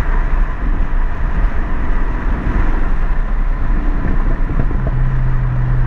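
Jaguar XF with a muffler-deleted exhaust cruising, heard from inside the cabin: steady engine and exhaust rumble over road noise, with a steady low hum coming in near the end.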